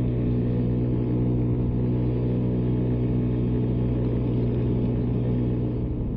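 Honda Ruckus scooter engine running steadily while riding along a road, a constant engine drone.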